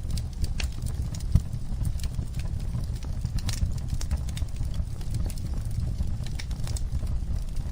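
Wood fire in a fireplace crackling: a steady low rumble of burning with irregular sharp pops and snaps, one louder pop about a second and a half in.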